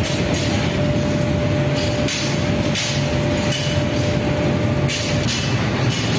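Steady low roar from a glass-bangle workshop's furnace and running fans, with a faint steady whine that stops about five seconds in. Several sharp knocks come in irregularly over the top.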